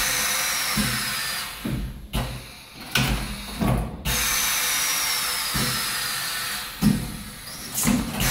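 YYD 400-300 pneumatic pad printing machine cycling. There are two long stretches of steady hiss, each carrying a faint falling whine, and in between the moving parts give several short clunks and knocks.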